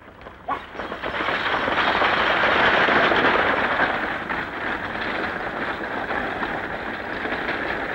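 Horse-drawn stagecoach setting off and running at speed: galloping hooves and rolling wheels in a dense rushing clatter that builds over the first couple of seconds and cuts off abruptly near the end.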